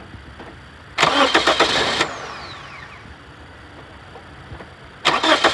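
2006 Toyota Corolla's starter cranking the engine twice. The first crank lasts about a second and ends in a falling whine as it spins down. The second begins near the end, as the engine is started on its newly installed alternator.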